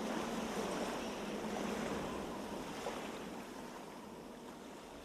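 Ocean surf sound, an even wash of waves, fading slowly at the close of a song recording played back through in-ear monitors.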